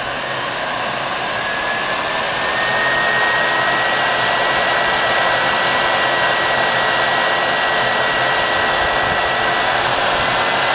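SEW Eurodrive electric motor run from an Allen-Bradley PowerFlex 4 variable-frequency drive, speeding up over the first few seconds and then running steadily: a loud, even rushing hum with a thin whine that rises slightly in pitch as it comes up to speed. It runs stable and quiet, with no vibration.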